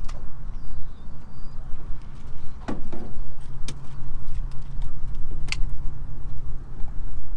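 Wind rumbling on the microphone in uneven gusts, with a few sharp clicks and knocks from fishing gear and a catfish being handled on a pontoon boat. A low steady hum runs for a few seconds in the middle.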